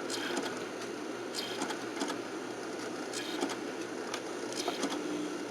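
Magnavox DVD player's disc drive whirring as it spins and tries to read a CD, with soft paired clicks from the mechanism about every second and a half. It has not yet started to play the disc.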